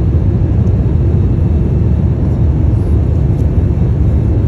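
Airliner cabin noise in flight: a steady low rumble of engines and airflow heard from inside the cabin.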